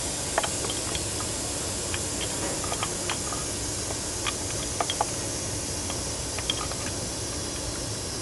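Light clicks and taps of metal parts being handled as a replacement fuel injector is fitted into the engine, over a steady hiss.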